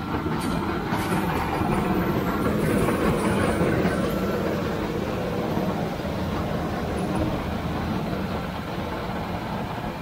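Heavy diesel farm machinery running steadily during harvest: a continuous engine and mechanical rumble that swells slightly a few seconds in.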